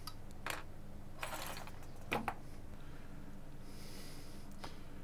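Quiet workbench room tone with a steady low hum, broken by a few faint clicks and brief rustles.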